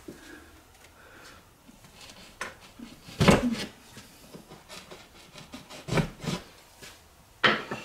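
Rubbing and scraping against a drywall wall as screw holes are marked on it, broken by a few short knocks, the loudest about three seconds in.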